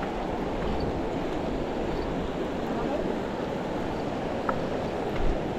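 Steady rushing of river water, with a light click about four and a half seconds in and a short thump near the end.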